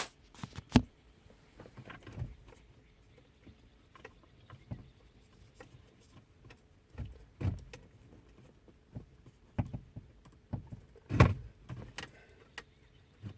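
Scattered knocks, clicks and rustles of hands working behind a car dashboard, unplugging the tablet's cables, with sharp knocks about a second in and again near eleven seconds.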